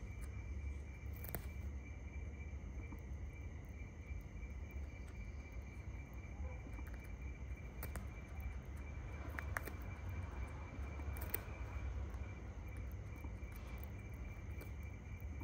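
A steady, high insect trill over a low background rumble, with scattered soft clicks and rustles from a shikra hawk tearing flesh from a pigeon carcass with its beak.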